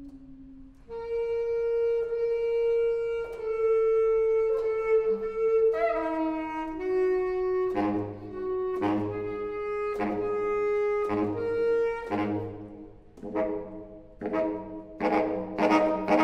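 Solo baritone saxophone playing contemporary concert music: a quiet low note, then a loud long held note from about a second in, followed by notes moving step by step. From about halfway through it plays short accented notes roughly once a second, growing into louder, rougher overlapping tones near the end.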